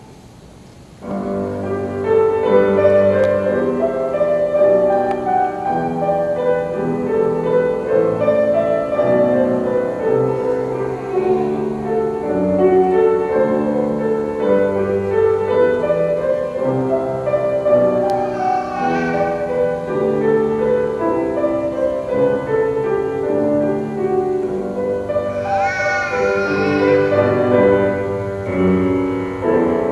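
Piano playing a slow classical piece in held chords, starting about a second in: the processional music after the guests are asked to stand.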